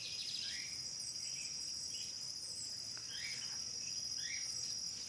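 Steady, high-pitched insect drone, with short falling bird chirps scattered over it.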